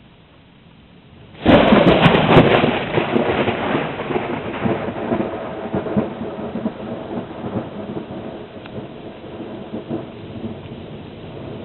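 Thunder: a sudden loud crack about a second and a half in, then a rumble that slowly dies away.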